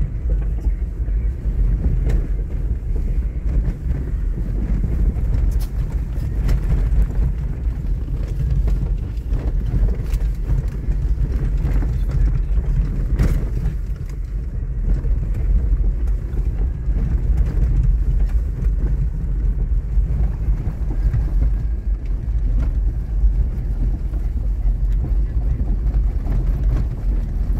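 Off-road vehicle driving over a rough gravel track, heard from inside the cabin: a steady low rumble of engine and tyres, with an occasional knock from a bump.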